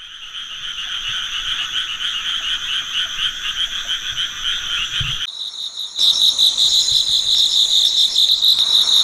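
A dense chorus of small calling animals, a fast pulsing trill. A little after five seconds in it breaks off, and a louder, higher-pitched pulsing chirr takes over.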